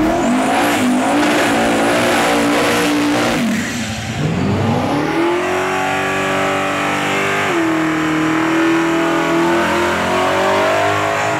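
Drag-car engines revved hard and held at high rpm for burnouts. About 3.5 s in, the first engine drops off. A second car then revs up and holds high while its big-rimmed rear tyres spin in thick smoke, and its revs fall away near the end.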